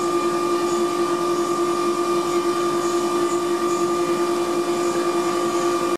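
Atlas Copco ZR 110 FF oil-free rotary screw air compressor running unloaded, a steady whine at two fixed pitches over an even machine hiss.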